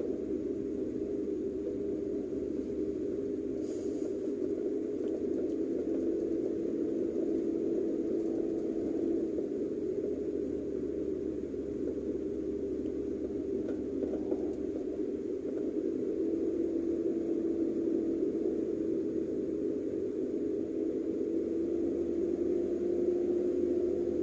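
Steady drone of a car's engine and tyres heard from inside the cabin while driving, an even low hum with no sudden changes.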